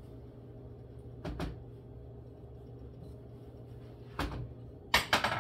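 Kitchen clatter of dishes and containers being handled: two light knocks, another a few seconds later, then a louder rattling clatter near the end, over a steady low hum.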